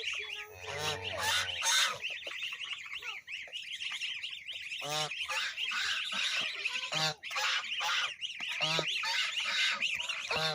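Farmyard bird sounds: dense, continuous high chirping and peeping, with short honk-like calls breaking through every couple of seconds.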